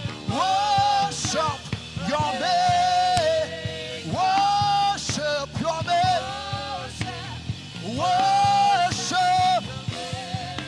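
Live gospel worship singing: a voice holding long notes that slide into and out of pitch in several wordless phrases, over steady band accompaniment.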